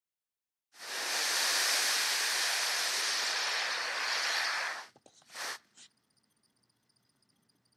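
A steady rushing hiss starts about a second in, holds for about four seconds and cuts off, followed by three brief scuffs.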